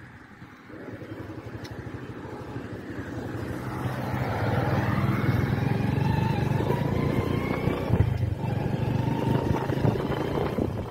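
A motor vehicle's engine running close by, growing louder over the first few seconds, holding steady, then starting to fade near the end.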